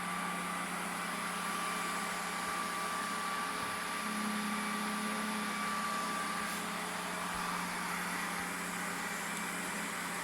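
Deebot 900 robot vacuum running with a steady hum as it cleans the floor and pushes a rug along. A second low tone joins about four seconds in and fades out a few seconds later.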